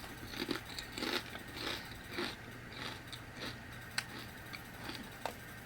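A person chewing crunchy lemon and pepper potato chips, with a run of short irregular crunches about two a second.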